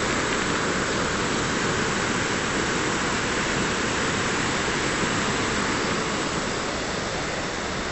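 River water rushing over a rocky bed in a gorge, a steady rushing noise that fades a little toward the end.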